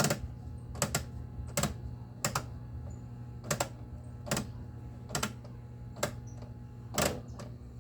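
Washing machine drive mechanism under the tub, set to spin, clicking and scraping about once every three-quarters of a second over a steady low motor hum. The scraping is the sign of a loose 13 mm adjusting nut on the mechanism; tightening it about five turns stops the noise.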